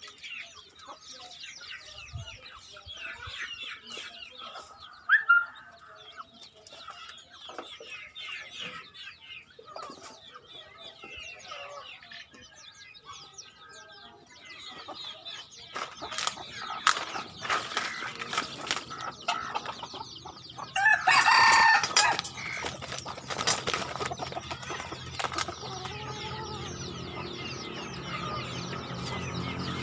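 Wild chickens (red junglefowl) clucking repeatedly, with a short loud call about 5 seconds in and a loud crow a little past two-thirds of the way through.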